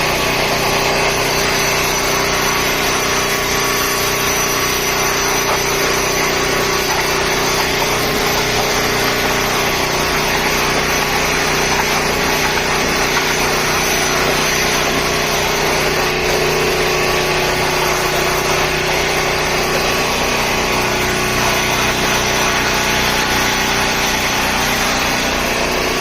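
Loud, steady drone of electric air-mover fans running to dry freshly cleaned area rugs, several steady tones over a constant whoosh.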